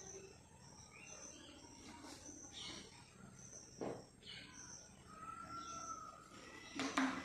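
Faint background of short, high chirps repeating every half second or so, with a steady high tone coming in about five seconds in and a sharp knock near the end.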